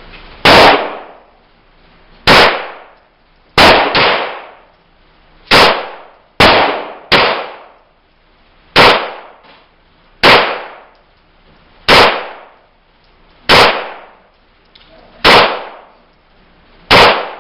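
A Ruger Mark IV Hunter .22 LR pistol firing Federal 525-pack rounds: about thirteen sharp shots, mostly a second and a half or so apart with a few quicker pairs, each trailing off in a brief echo. The pistol cycles without a hitch.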